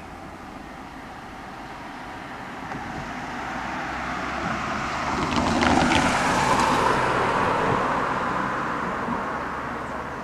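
A car driving past close by: its tyre and engine noise swells to a peak about six seconds in and then fades away.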